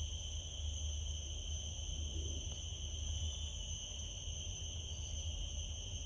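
Steady high-pitched insect drone, one unbroken note holding its pitch, over a low rumble.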